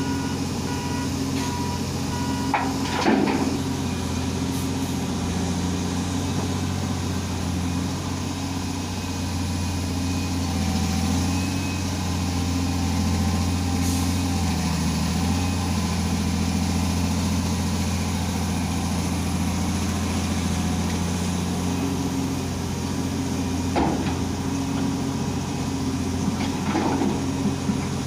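Komatsu excavator's diesel engine running steadily under work, with a few sharp knocks, about three seconds in and twice near the end. Short repeated beeping tones sound in the first couple of seconds.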